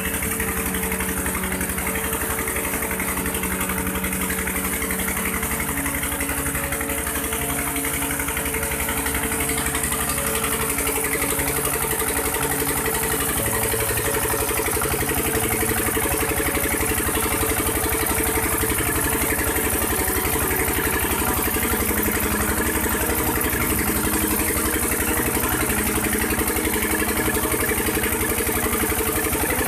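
Diesel engine running steadily, driving a belt-driven tube well pump, with a heavy stream of water gushing from the pump's outlet pipe into a brick channel.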